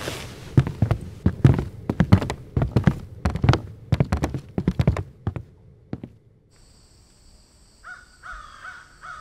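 A quick, irregular run of clattering knocks and clicks, as of gear being packed up, dying away about six seconds in. Then a steady high-pitched night hiss, and a bird calling several times near the end.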